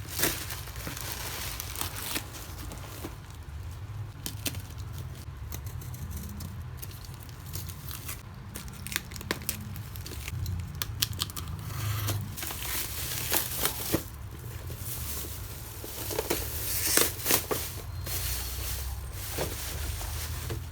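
Doll-box packaging being opened by hand: irregular crinkling, tearing and sharp clicks of cardboard and plastic, busiest about two thirds of the way through, over a low steady hum.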